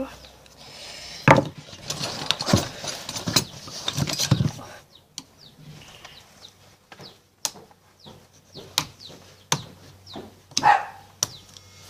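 Hard plastic clicking, knocking and scraping as a toy bubble gun's casing is handled and worked open during disassembly. A dense run of clicks and scrapes comes in the first few seconds, then scattered single clicks.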